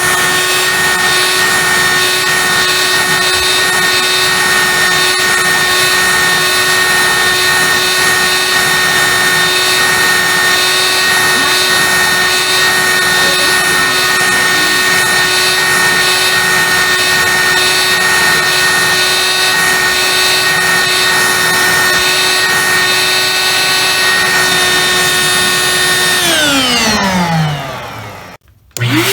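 Dirt Devil handheld vacuum cleaner's motor running at a steady pitch, then switched off about 26 seconds in and winding down to a stop.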